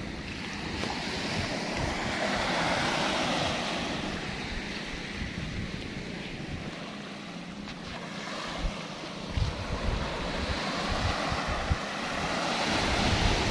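Small waves breaking and washing up a sand-and-pebble beach, surging about two seconds in and again near the end. Wind buffets the microphone in the second half.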